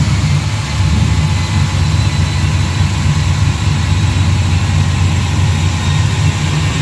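Supercharged 6.1-litre Hemi V8 of a 2009 Dodge Challenger SRT8, fitted with a Procharger D1X, running at a steady, even speed with a heavy low engine note.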